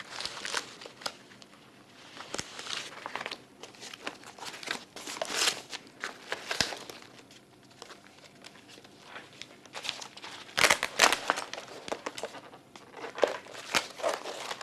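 A plastic infusion bag and a padded nylon carry bag being handled: crinkling and rustling in irregular bursts, loudest about ten to eleven seconds in.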